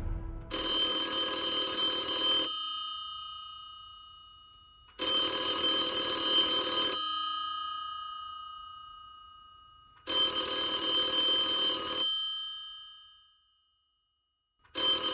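Old-style desk telephone's bell ringing: three rings of about two seconds each, roughly five seconds apart, each fading away after it stops, with a fourth ring starting near the end.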